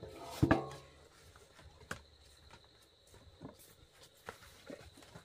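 A dog gives one short, loud call about half a second in, followed by scattered light knocks and steps on a bamboo floor.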